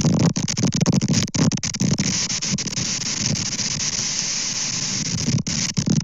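Storm wind buffeting the outdoor nest camera's microphone, with rain: a loud, dense rushing with a low rumble, broken by a few very short dropouts.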